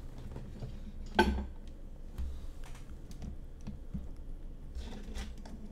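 Scattered computer keyboard key presses and clicks, with one louder knock about a second in, over a low steady hum.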